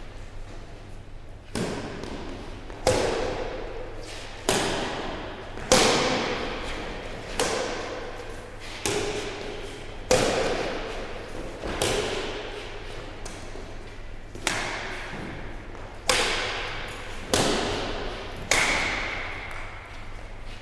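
Badminton racquets striking a shuttlecock in a rally: about a dozen sharp hits, one every second and a half or so, each echoing away in a large hall.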